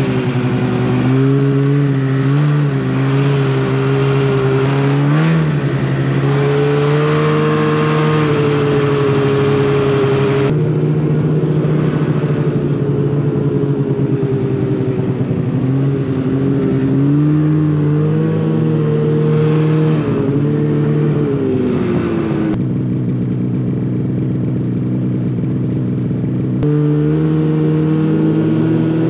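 Snowmobile engine running under way, its pitch rising and falling with the throttle. The sound changes abruptly about a third of the way in and twice more near the end.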